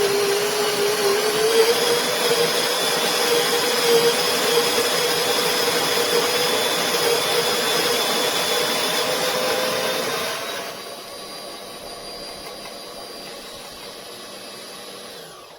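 SHARDOR 64mm flat burr electric coffee grinder grinding a single dose of espresso beans, a loud steady motor whine that rises slightly in pitch at first. About ten and a half seconds in the sound drops to a quieter hum as the last beans are ground and the burrs spin empty. The motor stops near the end.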